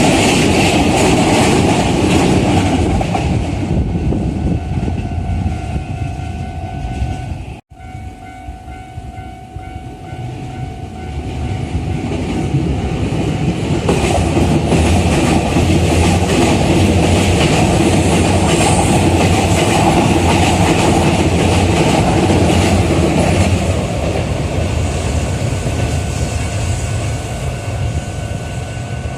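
Keikyu electric trains passing a level crossing: one train's rumble dies away and breaks off abruptly, and after the crossing signal's ringing tones the next train approaches, rumbles and clatters over the rail joints at its loudest for several seconds, then fades. The crossing warning bell rings steadily throughout.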